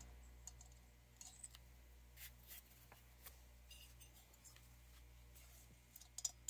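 Near silence with scattered faint clicks and light taps of small parts and tools being handled during a chainsaw teardown.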